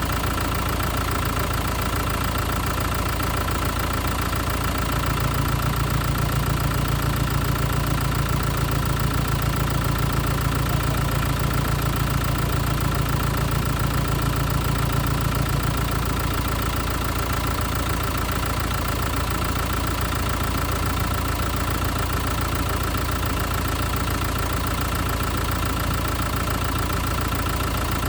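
Renault Kadjar car engine idling steadily after a start made hard by a failing battery, with a steady whine over the hum; about five seconds in its low note grows fuller for some ten seconds, then settles back.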